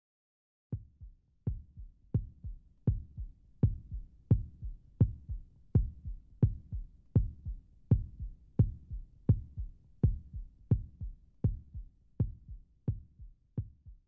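A steady heartbeat-like pulse: a double thump, a strong beat followed closely by a weaker one, repeating about three times every two seconds. It starts about a second in and grows fainter toward the end.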